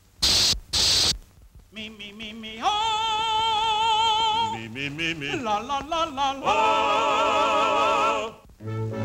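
Two short sprays of a throat atomizer, then a cartoon cat's wordless operatic singing: stepped notes with wide vibrato, long held tones, and a sliding run up and down in the middle.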